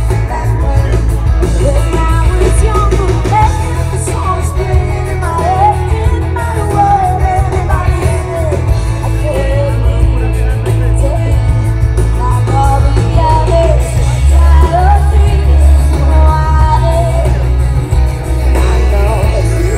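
Live band playing a rock song: a woman singing lead over bass guitar, drums, keyboard and guitars, with heavy bass.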